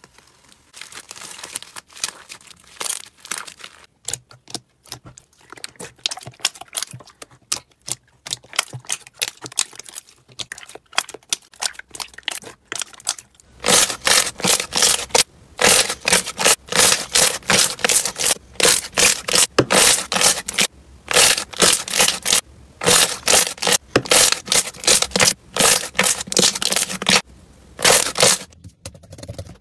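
Slime being worked by hand, giving sticky clicks and small pops. About halfway, as the slime is pressed and squeezed between the fingers, it turns to loud, rapid runs of popping and crackling with short pauses.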